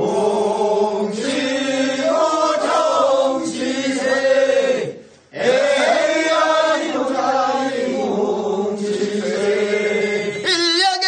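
Voices chanting the refrain of a Korean rice-seedling-pulling work song (모찌는 소리), in two long drawn-out sung phrases with a short break about five seconds in.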